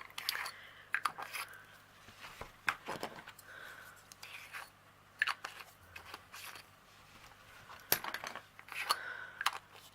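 Small plastic bead-storage bottles clicking and knocking as they are handled and taken out of their foam insert, with some soft rustling in between.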